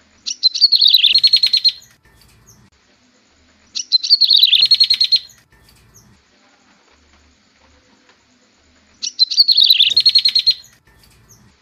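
Prenjak tebu (a prinia) song played as a lure call to draw the birds in: three loud bursts of about a second and a half each. Each burst is a rapid trill of notes that drops in pitch and then runs level.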